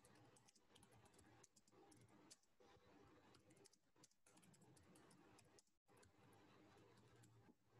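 Faint computer keyboard typing: quick, irregular key clicks in short runs with brief pauses between them.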